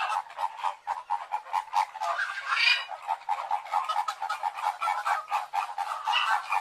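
A flock of Chilean flamingos calling: a steady nasal gabbling of short honks, about five or six a second, with a louder, higher call about two and a half seconds in.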